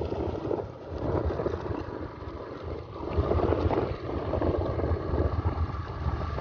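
Wind buffeting the microphone of a moving motorcycle, over the low rumble of its engine and tyres on a rough gravel road; it gets louder about three seconds in.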